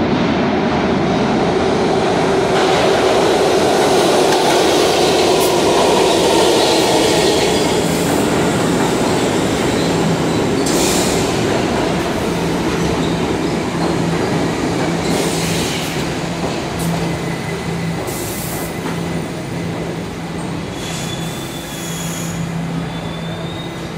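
R68 subway train rolling into the station and slowing down, its wheels rumbling loudly on the rails. Several brief high squeals come from the wheels and brakes in the second half, along with a steady low hum. The overall noise fades gradually as the train loses speed.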